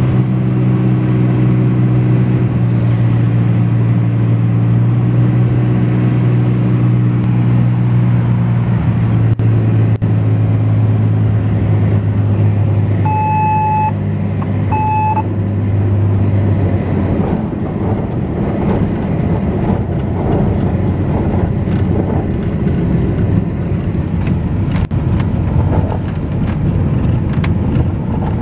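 Cockpit of a Cessna T210 Turbo Centurion II landing: the turbocharged six-cylinder engine drones steadily at low power. About halfway through, a stall-warning horn beeps twice in the flare at touchdown. The engine note then fades into a rough rumble of wheels and airflow during the rollout.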